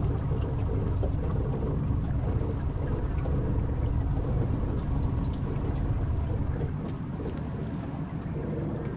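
Outboard motor of a small aluminium boat running at low speed, a steady low rumble that eases slightly about seven seconds in.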